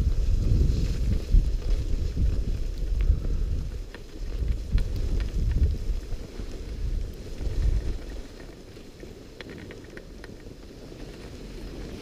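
Wind buffeting the microphone of a camera worn by a skier moving downhill, an uneven low rumble with the faint hiss of skis sliding on snow. It dies down about eight seconds in as the skier slows.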